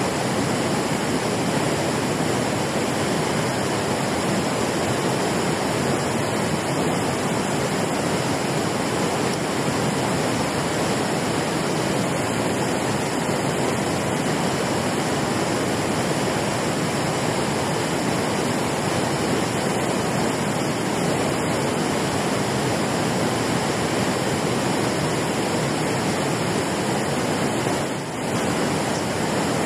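Steady rush of river water pouring over a concrete weir, an even noise with no breaks.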